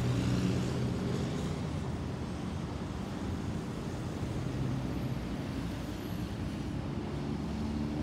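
Distant jet airliner, a Thai AirAsia Airbus A320-214 with CFM56 turbofans, passing overhead with a steady, even rumble. A low hum from road traffic is mixed in, strongest near the start and near the end.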